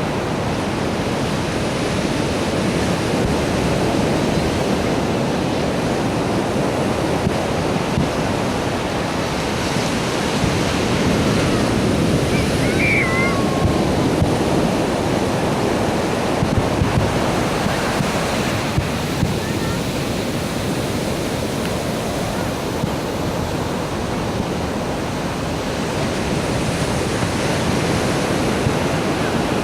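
Steady rush of ocean surf with wind on the microphone. About halfway through, a brief warbling high-pitched sound stands out over it.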